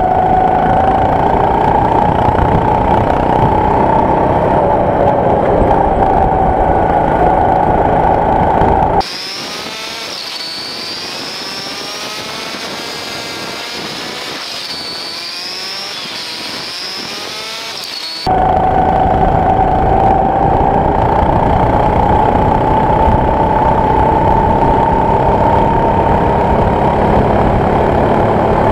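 Go-kart engine running hard at a steady high pitch that slowly rises, recorded from the kart itself. About nine seconds in, the sound cuts abruptly to a much quieter thin whine with wavering higher tones, and about nine seconds later the full engine sound returns just as suddenly.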